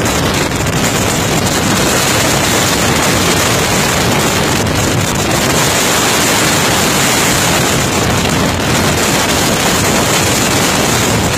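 Steady wind rushing over the microphone of an open-bodied 1911 Sunbeam 16/20 driving along, with the car's engine running underneath.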